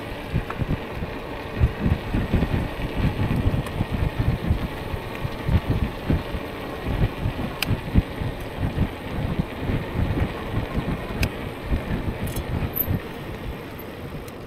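Wind noise on the microphone of a moving e-bike: an uneven, gusty low rumble that eases near the end, with a few sharp clicks.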